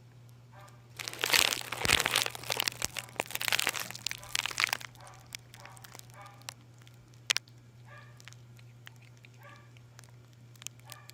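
Kitten chewing crunchy vegetable peels: dense crackling and crunching for about four seconds, then a few scattered single clicks.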